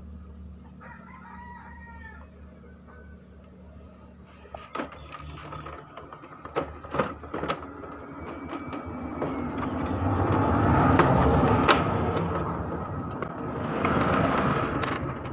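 A rooster crows once, briefly, about a second in. After that come a few sharp clicks and knocks, and then a loud rush of noise that swells to a peak past the middle and fades again.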